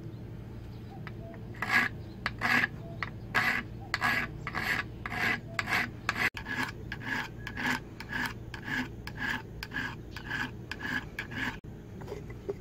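Hand file rasping back and forth across the edge of a steel axe head cut from an old circular saw blade: even strokes about two a second, starting a second and a half in, quickening a little after the middle, and stopping about a second before the end.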